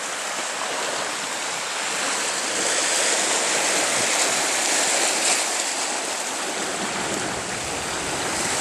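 Steady rushing sound of water, with no separate splashes or knocks standing out.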